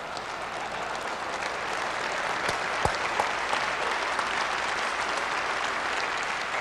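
Audience applauding steadily in response to a punchline from the preacher.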